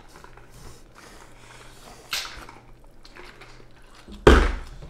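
A woman eating chow mein close to the microphone: soft mouth sounds, a brief slurp about two seconds in, and a louder, sudden slurp of noodles just after four seconds.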